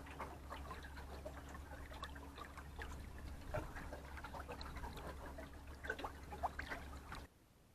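Small water splashes and trickling against the boat, many quick ticks over a low steady hum, all cutting off suddenly near the end.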